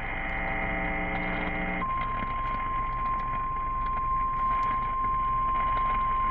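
Emergency Alert System warning alarm: a buzzing tone for nearly two seconds, then a single steady high tone, the 1050 Hz NOAA Weather Radio warning tone, that holds unbroken. It signals that a flash flood warning message is about to follow.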